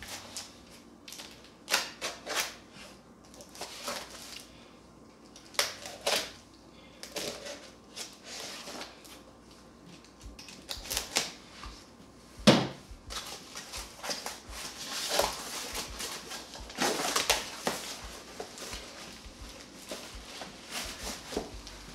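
Small cardboard box being handled and opened: irregular scraping, rubbing and crinkling of cardboard flaps, with one sharp knock about halfway through.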